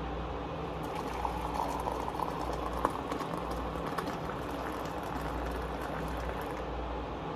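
Hot coffee poured in a thin stream into a ceramic mug, a steady splashing hiss that starts about a second in.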